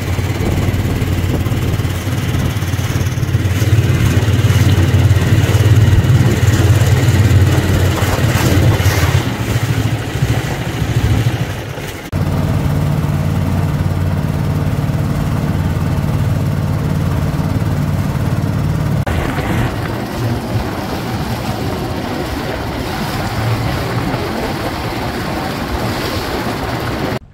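Small wooden fishing boat's engine running steadily under way, a loud low hum, with water rushing and splashing along the hull. The hum dips briefly about twelve seconds in and then carries on.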